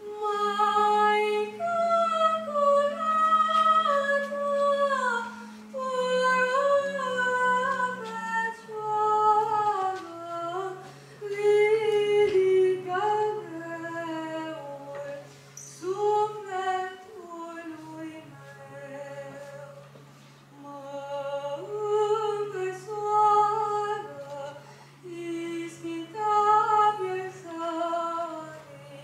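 A boy singing a patriotic song into a microphone, the melody moving in steady stepwise phrases with short breaks between them, over low held accompaniment notes that change every few seconds.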